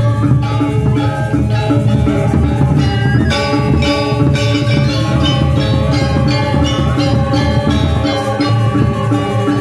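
Balinese gamelan playing: bronze metallophones ring under dense struck patterns, with bamboo suling flutes and a kendang drum. A loud accented stroke comes about three seconds in.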